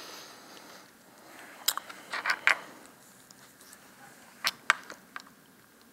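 A few short, sharp clicks over quiet room tone: one single click, then a quick cluster of three, then two more close together near the end.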